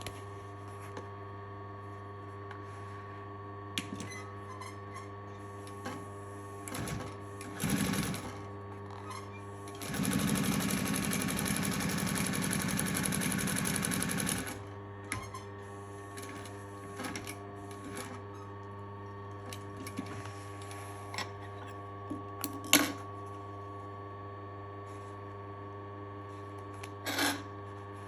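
Global NF 331LH needle-feed industrial sewing machine stitching leather: its clutch motor hums steadily throughout, and about ten seconds in the machine runs a fast, even burst of stitches lasting about four and a half seconds. Shorter bursts and clicks come before and after it.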